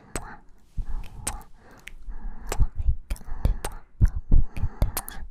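Light kisses and soft breaths close to the microphone: irregular sharp, wet lip smacks between breathy exhales.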